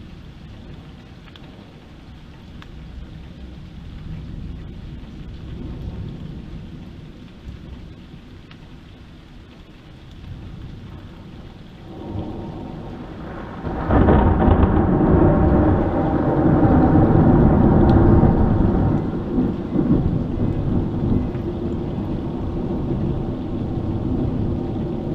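Thunder over steady heavy rain: faint low rumbles at first, then about halfway through a loud peal builds, breaks sharply and rolls on for several seconds before slowly fading.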